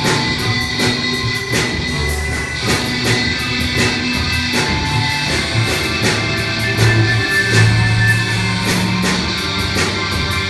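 Rock music played by a robot band: guitar over a drum kit keeping a steady beat.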